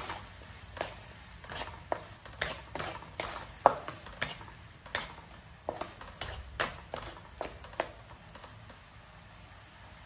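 Wooden spatula scraping and stirring minced pork around a metal wok, about two strokes a second, stopping about eight seconds in.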